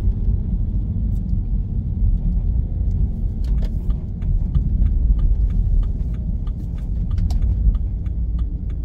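Car cabin road rumble as the car drives slowly on a wet lane. From about three and a half seconds in, a turn indicator ticks steadily, about three clicks a second, as the car turns right.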